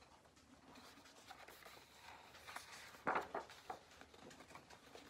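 Faint rustling and rubbing of a picture book's paper pages being handled and turned, with a louder swish of the page about three seconds in.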